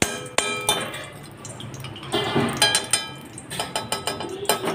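Metal spoon clinking and scraping against a metal kadai as ghee and oil are spooned into it: several runs of sharp, ringing clinks, with a short scrape a little after the middle.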